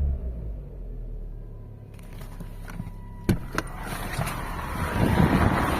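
Car engine idling just after a cold start in hard frost, with a steady high whistle over the low engine hum, which the owner suspects comes from the throttle and expects to stop once the engine warms up. A single knock about three seconds in, and rough rustling noise near the end.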